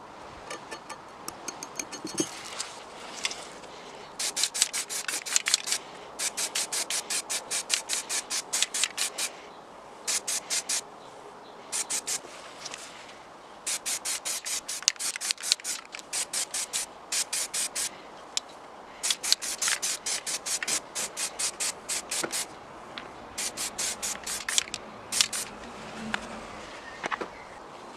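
Rapid back-and-forth abrasive strokes, about six a second, scrubbing the rust off a part of a Bahco 176 pipe cutter by hand. The strokes come in runs of a few seconds with short pauses between them.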